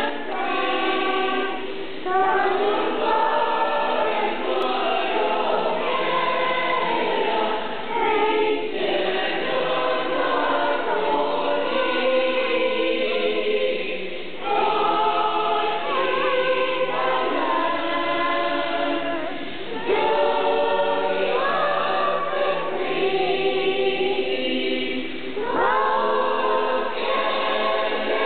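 A crowd of children and adults singing a song together, long held phrases with short breaks every few seconds.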